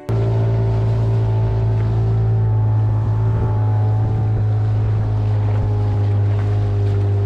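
A motorboat's engine running at a steady speed: a loud, even drone with a strong low hum. It cuts in suddenly at the start.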